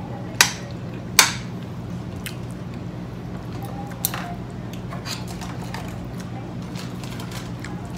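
A spoon clicks sharply against a clear plastic food container three times, about half a second, one second and four seconds in, over a steady low hum.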